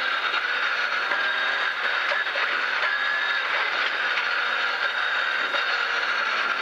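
Cabin noise of a 1997 BMW M3 rally car at speed on a gravel stage: the engine running steadily under load, mixed with tyre and gravel noise.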